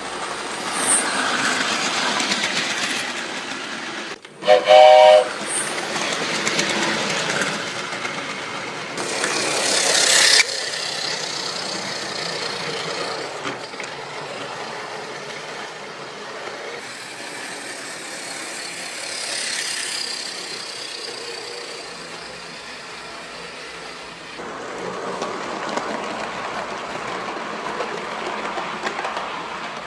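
Miniature ride-on railway train running along its track, with continuous rolling noise. About five seconds in, its whistle gives a short loud blast. Around ten seconds in, a hissing rush builds and then cuts off abruptly.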